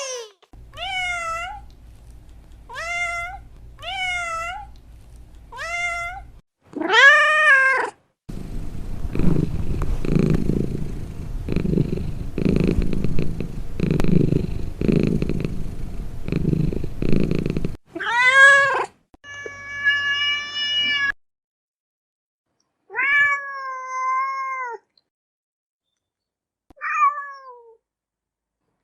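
Domestic cat meowing: a string of short meows, then a louder one, then about ten seconds of low, pulsing purring. A few more meows follow with pauses between, one of them drawn out.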